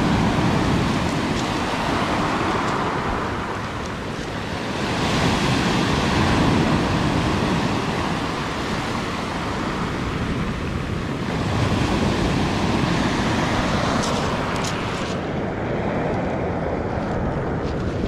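Black Sea surf breaking and washing up a pebble beach, swelling and easing every few seconds as waves come in and draw back.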